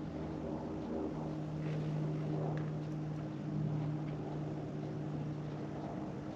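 A steady low mechanical hum, as of a motor running, holding one even pitch throughout.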